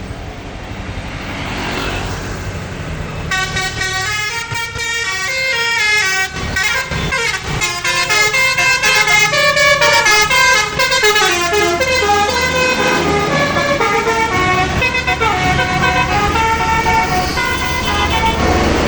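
Indonesian 'telolet' bus horn, a set of multi-tone horns, playing a fast melody of tones that step up and down. The melody starts about three seconds in and runs to near the end, over the bus's engine running underneath.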